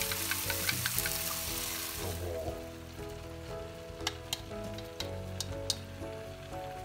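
A frying pan of stir-fried tomatoes sizzling loudly as beaten egg mixed with milk is poured in. The sizzle dies down after about two seconds, and a few light clicks follow as the bowl is scraped out over the pan.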